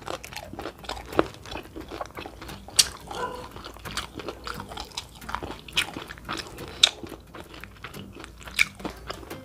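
Crisp fried chicken breading crunching as it is bitten and chewed, in many sharp, irregular crackles.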